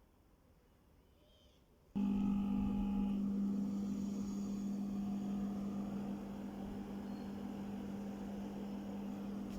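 2008 AUX ASW-H09A/4EG mini split air conditioner starting up: about two seconds in, a steady low hum comes on suddenly and keeps running.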